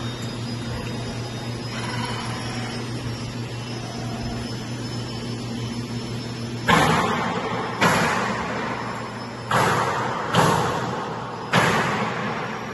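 HANJIE HC250 servo mandrel tube bending machine running with a steady low hum, then five sudden, sharp bursts of noise, each fading over about a second, as the machine works through its bending cycle.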